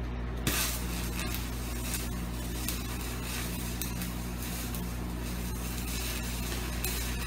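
Stick (arc) welding with a flux-coated rod: a steady crackling hiss as a bead is run where a steel axle tube meets the center of a Ford 8.8 rear axle housing. The arc strikes about half a second in, over a steady electrical hum.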